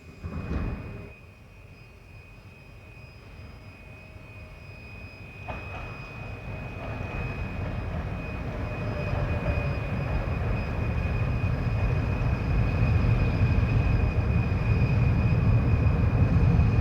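A locomotive pulling away from a standstill, its low rumble growing steadily louder as it gathers speed. A short loud burst comes about half a second in, a sharp click about five seconds later, and a steady high tone sits over the rumble throughout.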